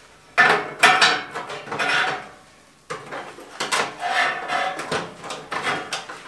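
Metal clattering and scraping as a part is worked into place on a sheet-metal box mounted on a steel frame, in two bouts: one starting about half a second in, the other about three seconds in.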